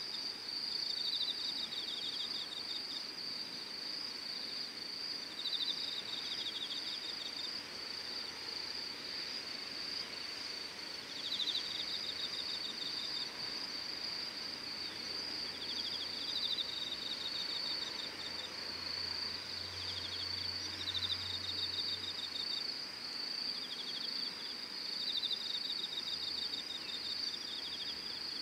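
Insects calling in the evening: one keeps up a continuous high-pitched trill, while another breaks in every few seconds with short bouts of rapid pulsed chirping.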